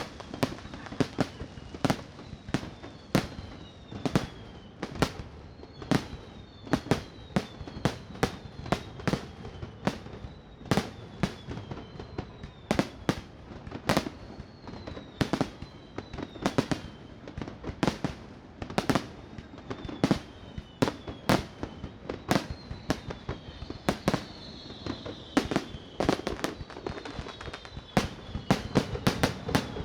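Fireworks display: a dense, continuous string of sharp bangs and pops, several a second, with high whistles falling in pitch between them. The bursts come thickest near the end.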